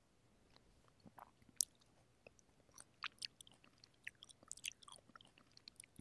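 Close-miked chewing of juicy fresh cherries: soft wet mouth smacks and small clicks, getting busier about halfway through.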